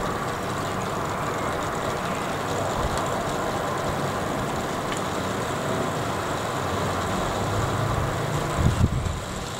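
Heavy rain falling in a steady hiss, heard from behind a window pane streaming with raindrops, with a few low thumps near the end.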